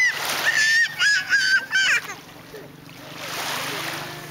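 A young child's high-pitched squeals, four in quick succession over about two seconds, each held on one pitch and dropping at the end.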